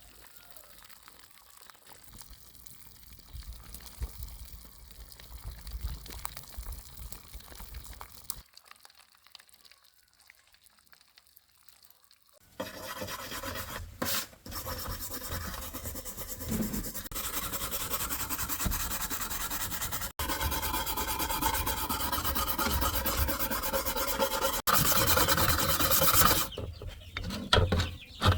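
Rusty steel sword blade being scrubbed with an abrasive to remove rust: a dense, steady scraping that starts about halfway through, after some faint handling knocks and a few seconds of near silence.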